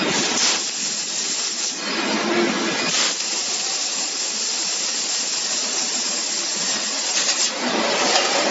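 Laser tube-cutting machine cutting a metal tube: a steady hiss of assist gas at the cutting head, with a few short louder swells.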